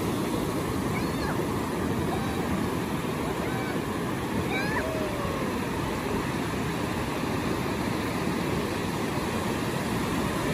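Sea surf: waves breaking and washing up over the sand in a steady rush, with a few faint short high calls above it.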